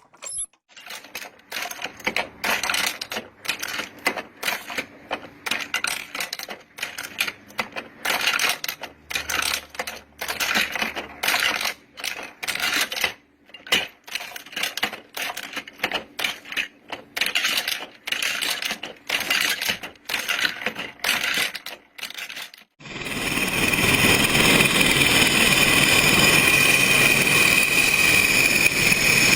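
Hand-operated ammunition belt-loading machine clacking rapidly as its handle is worked, pressing cartridges into the belt links in quick runs with brief pauses. About 23 seconds in, this stops abruptly and a loud, steady rushing noise with a few steady tones takes over.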